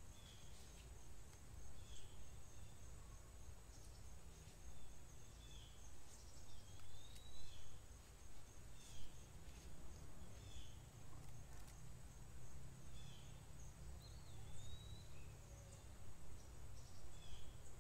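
Faint outdoor ambience: a steady high insect drone, with a bird giving short calls every second or two. Twice, about seven and about fourteen seconds in, there is a longer slurred whistle.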